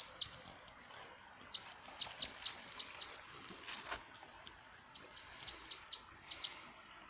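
Water trickling in a small stream, with a small bird's short high chirps repeating in twos and threes throughout. A single brief knock about four seconds in.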